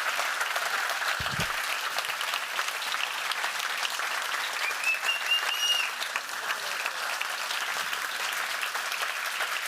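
Conference audience applauding steadily: dense, even clapping from a large crowd.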